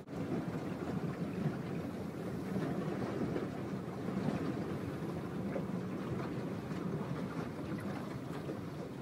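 Car driving through deep floodwater, heard from inside the cabin: a steady low rumble of the engine and of water washing against the body.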